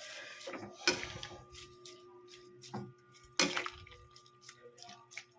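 Cooking at a pot of simmering vegetable soup: a few sharp knocks of a utensil against the pot, the loudest about a second in and another about three and a half seconds in, with faint liquid sounds.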